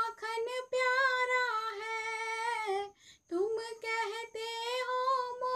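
A woman singing a Hindi devotional bhajan solo, with no instrument heard, holding long drawn-out notes with a short breath break about three seconds in.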